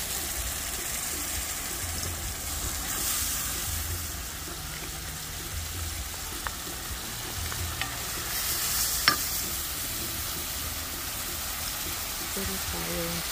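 Curry paste sizzling as it fries in hot oil with onions and tomatoes in a stainless steel pan, stirred with a wooden spoon. A single sharp click about nine seconds in.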